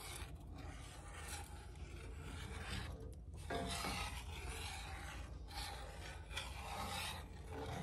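Metal spoon stirring thick creamed corn in a cast-iron skillet, scraping across the bottom of the pan in rough, uneven rasping strokes, with a short pause about three seconds in.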